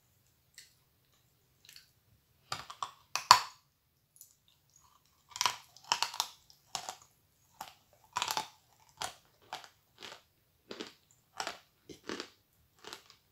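Bites into a block of edible chalk, loudest about three seconds in, then steady crunchy chewing of a mouthful of chalk at a bit under two chews a second.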